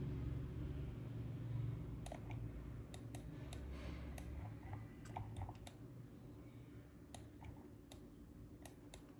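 Irregular computer mouse clicks, several in quick pairs, starting about two seconds in over a low steady hum.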